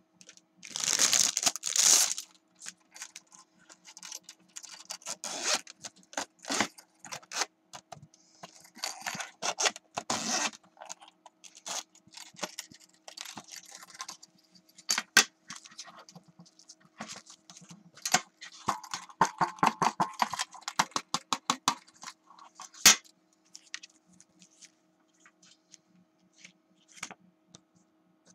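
Clear plastic packaging of a CD carry case being handled and opened: crinkling and tearing in irregular bursts, with scattered sharp clicks and taps, the loudest rustling about a second in, tapering to occasional ticks near the end.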